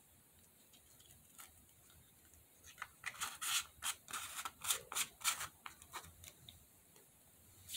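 Hands handling small items, giving a quick run of short rubbing and scraping strokes from about three seconds in, with a few fainter ones after.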